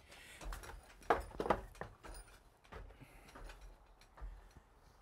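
A few scattered light knocks and handling noises, the loudest about a second in, over a faint low rumble.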